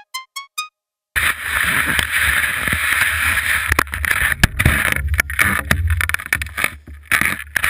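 A few last short synth notes, then after a brief gap the scrape and hiss of cross-country skis gliding over cold snow at −16 °C, heard from a camera mounted on the ski, with frequent sharp clicks and knocks and a low rumble beneath.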